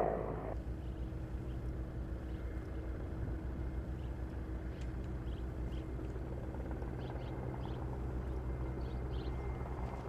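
A firefighting helicopter's engine and rotor noise cuts off about half a second in. It leaves a steady low engine hum, with a few faint high chirps later on.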